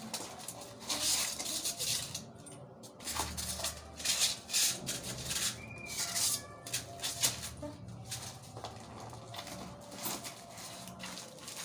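Packaging rustling and small items being handled, with several short bursts of rustling as skin-care products are lifted out of their box and set down.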